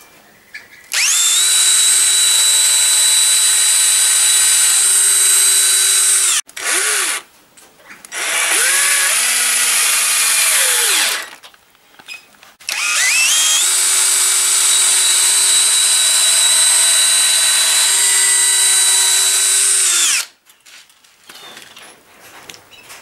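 Cordless drill boring into the side of a wooden door frame, in three runs: about five seconds, a shorter one whose pitch sags as the bit loads up, then about seven seconds. Each run spins up at the start and winds down at the end.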